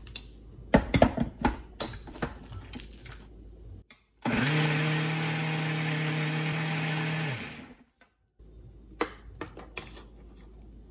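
Electric mixer-grinder (mixie) running for about three seconds, grinding coconut, ginger, green chilies and roasted gram with water into a smooth chutney paste; it starts abruptly and winds down as it is switched off. Knocks of the steel jar being handled come before it, and a few spoon taps against the steel jar after it.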